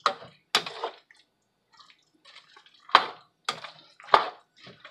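Spatula stirring saucy zucchini noodles and sausage in a pan: irregular wet squelching and scraping, with two sharp clacks of the utensil against the pan about three seconds in and a second later.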